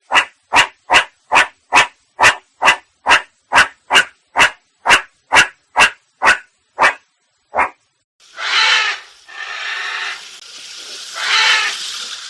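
An animal calling: a run of about seventeen short, evenly spaced calls, roughly two a second, then three longer, rougher calls from about eight seconds in.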